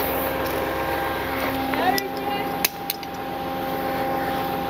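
Truck engine running steadily, a constant droning hum, with two sharp clicks a little past halfway.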